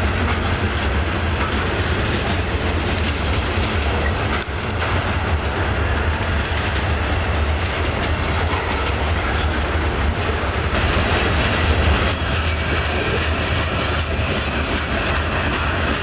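Freight train of covered hopper cars rolling past, a steady rumble of steel wheels on rail with clickety-clack over the rail joints. A faint high squeal joins in about twelve seconds in.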